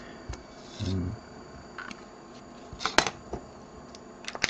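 Small clicks and taps of a paintbrush and small parts being handled on a cutting mat over a faint steady hiss: one sharp click about three seconds in and a quick run of clicks near the end. A short low murmur of the voice about a second in.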